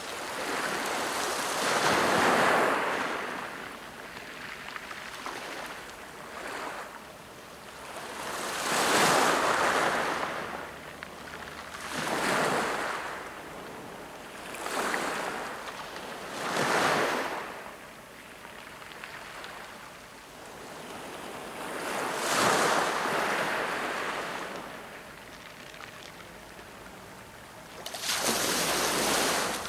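Small waves breaking and washing over a pebble beach, each surge swelling and fading every few seconds, with a longer surge near the end.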